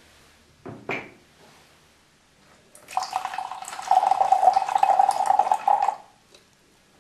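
Dark liquor poured from a glass decanter into a brandy snifter: a steady splashing pour lasting about three seconds, ending abruptly. A short knock comes about a second in.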